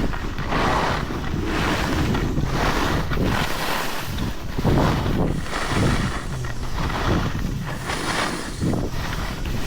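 Wind rushing and buffeting over the microphone while skiing downhill, with the hiss of skis sliding over snow.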